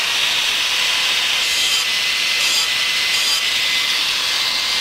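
Small angle grinder running at full speed with a steady whine, its grinding disc grinding down the tip of a steel bolt to a point.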